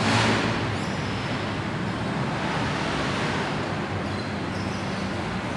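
Steady background noise of road traffic, with a low hum under it.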